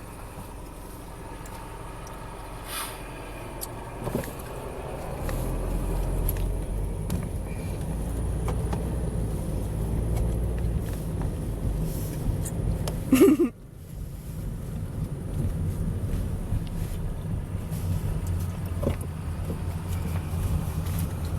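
A steady low rumble that grows louder about five seconds in. Just past the middle comes a brief, louder sound, and then everything cuts out sharply for a moment before the rumble returns.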